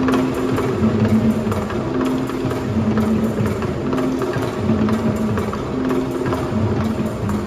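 Marching band playing: held wind notes that move from pitch to pitch over steady drum and percussion strikes.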